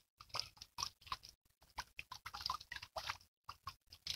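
Faint, irregular crackling and clicking, several small clicks a second.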